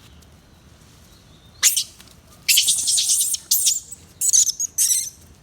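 Shrill animal screeches in a quick series of bursts, the first about one and a half seconds in and the rest packed together through the second half.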